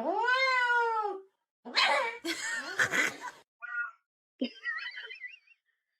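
A cat meowing: one long drawn-out meow that rises and falls at the start, then a rougher, noisier stretch and a few shorter, higher wavering cries.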